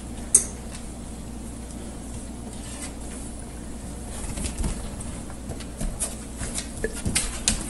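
A sharp knock about a third of a second in, then scrabbling clicks and knocks that grow busier in the second half, as a dog and a cat tussle over a plastic food bowl on a hard floor.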